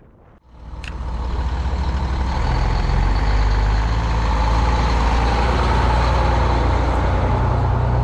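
Truck engine running loud and steady with a low hum, under a haze of road or wind noise, with a single click about a second in.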